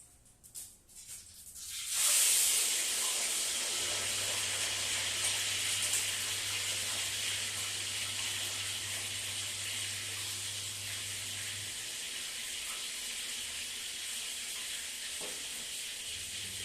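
Food going into hot cooking oil about two seconds in, starting a loud, steady frying sizzle that eases slightly as it goes on.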